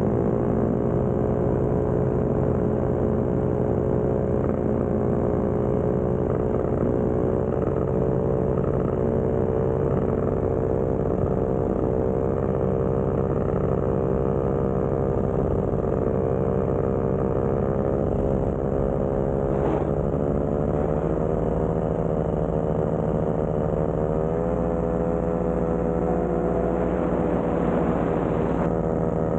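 VR150 paramotor's engine and propeller droning steadily in powered flight. The pitch dips briefly about twenty seconds in and steps up slightly about twenty-five seconds in as the throttle changes.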